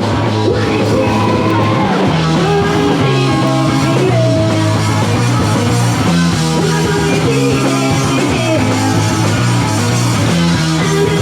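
Loud rock music with guitars and a singing voice, starting suddenly on a cut.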